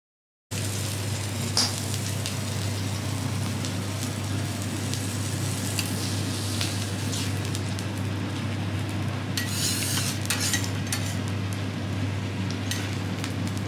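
Food sizzling on a teppanyaki griddle: a steady crackling hiss with scattered pops and ticks over a steady low hum, starting suddenly about half a second in, with the sharpest pop about a second and a half in.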